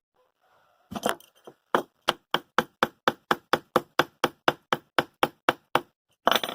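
Repeated sharp strikes beating a skateboard bearing down into its wheel: a few knocks about a second in, then an even run of about four strikes a second, and one louder blow near the end.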